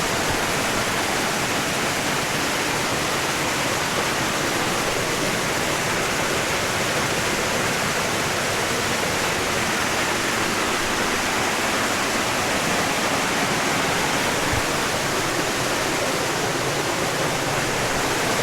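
Waterfall rushing, a steady even roar of falling water that holds level throughout.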